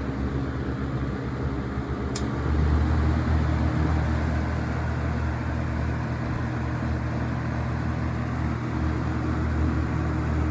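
Vintage Coast-Air 12-inch box fan running: a short click about two seconds in, then the motor's low hum and the rush of air grow louder and settle into a steady run on high speed. Smooth running with low vibration and no rattles.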